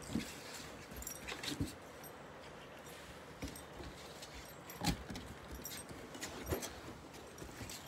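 Great Pyrenees puppies play-wrestling on a wooden deck: paws and claws scuffling and clicking on the boards, with a few louder knocks and a light metallic jingle of collar tags.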